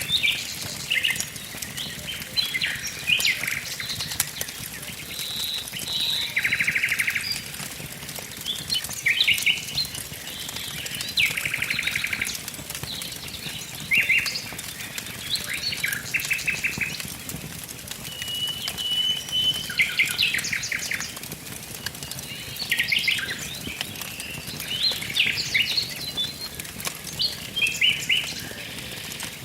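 Forest songbirds singing: many short chirps and repeated trills from several birds, over a soft crackle of a wood fire.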